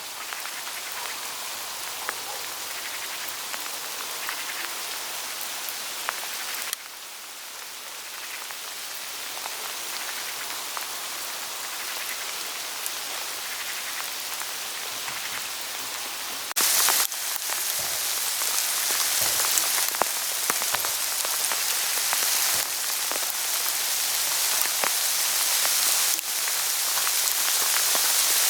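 Hail pattering on autumn forest leaves: a dense spray of small ticks over a steady hiss. A brief louder burst comes a little past halfway, and the patter grows louder after it.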